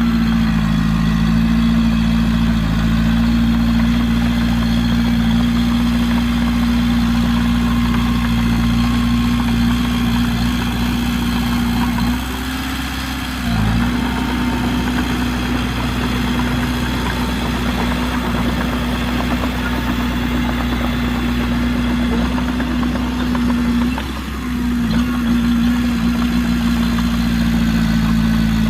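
Heavy diesel engine of earthmoving machinery running steadily with a strong hum. It eases off about twelve seconds in, dipping briefly in pitch, and eases again for a moment near twenty-four seconds.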